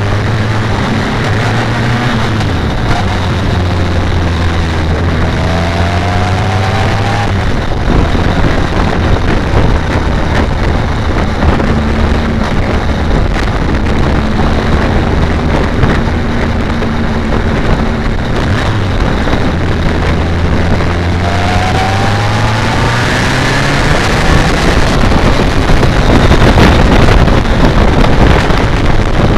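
BMW K1200R Sport's inline-four engine running under way at low revs, with wind rushing over the microphone. The engine pitch rises twice as the bike accelerates, about five seconds in and again past twenty seconds, and the wind grows louder near the end.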